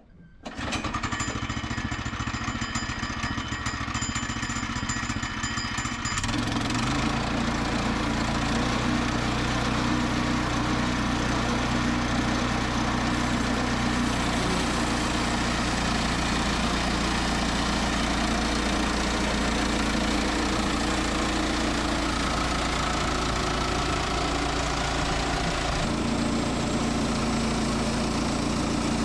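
Small gasoline engine of a portable bandsaw sawmill running steadily. A deeper steady hum joins about six seconds in.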